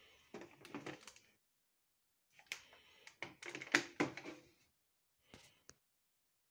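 Plastic clicks and rattles from a Panasonic VCR remote control being handled, its flip cover open to the programming keys, in a few short bouts of clicking.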